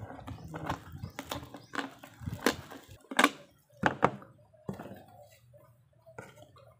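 Thin plastic water bottle crackling and clicking in the hand as a hole is poked through it with a nail, a string of sharp clicks and knocks, the loudest about three and four seconds in.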